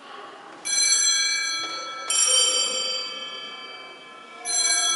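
Altar bells rung three times, about one and a half to two seconds apart, at the elevation of the chalice during the consecration. Each ring is a bright, multi-tone chime that rings on and fades slowly.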